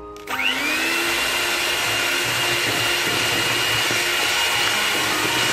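Electric hand mixer switched on about a quarter second in, its motor whine rising quickly and then running steadily at speed as the beaters mix egg into creamed butter and sugar.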